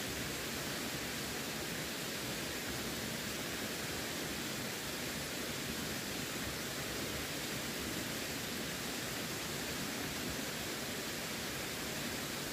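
Running water making a steady, unbroken rushing hiss, with no splashes or drips standing out.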